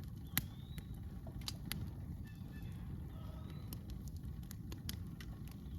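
Campfire wood crackling, with sharp pops and snaps scattered irregularly over a low steady rumble; the loudest pop comes about half a second in.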